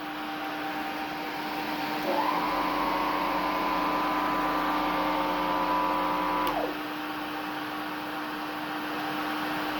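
Tristar canister vacuum cleaner's motor switched on about two seconds in, quickly spinning up to a steady whine. It is switched off a few seconds later and winds down with falling pitch. A steady low hum continues underneath throughout.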